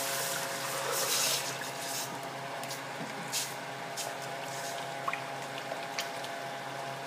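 Broth poured into a stainless steel pot for about the first second, then stirred, with a utensil clicking against the pot a few times. A steady hum runs underneath.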